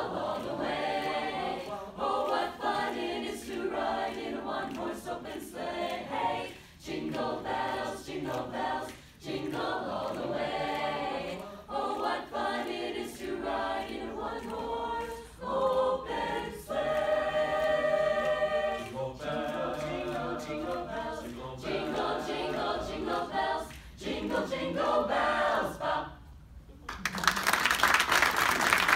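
Mixed choir of young men and women singing a cappella in close harmony, phrase after phrase with short breaks, and a long held chord a little past the middle. The song ends about 26 seconds in, and loud audience applause breaks out near the end.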